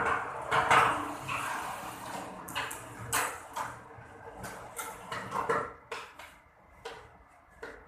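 A run of sharp, irregular knocks and clatters of hard objects, dense at first and thinning out to a few isolated taps near the end.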